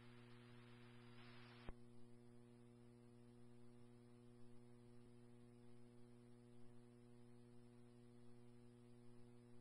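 Near silence between police scanner transmissions: a faint hiss that stops with a click about a second and a half in, then a faint steady hum.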